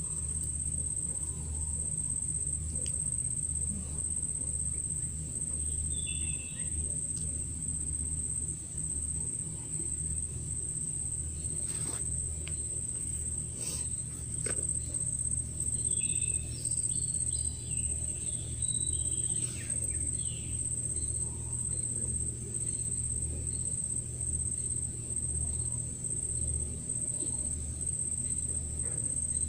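Steady high-pitched drone of insects, crickets or cicadas of the mangrove, running unbroken. A few short chirps come in about six seconds in and again in the middle, over a low rumble.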